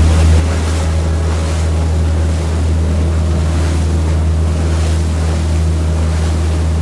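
Charter fishing boat's engine running steadily underway, a deep even drone, with water rushing past the hull and wind on the microphone.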